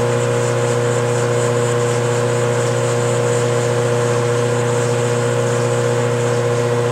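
Metal lathe running steadily, its tool cutting into a spinning 7075 aluminum workpiece: a constant motor and gear hum over an even cutting hiss.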